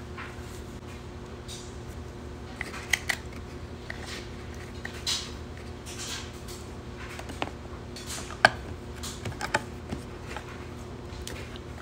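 Small plastic jars of nail product handled while their seals and wrapping are peeled off: scattered light clicks, taps and crinkles, the sharpest about eight and a half seconds in. A steady low hum sits underneath.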